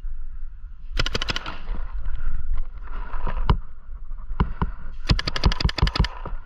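Paintball markers firing: a quick burst of shots about a second in, a few scattered single shots, then a longer rapid string of shots near the end.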